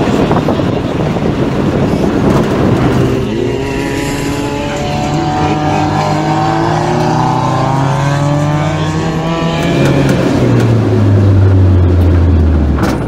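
Car engines revving as the cars accelerate on a wet track, their pitch climbing, over wind noise on the microphone at first. Near the end, a single engine is heard from inside the car as a loud low drone that dips slightly in pitch.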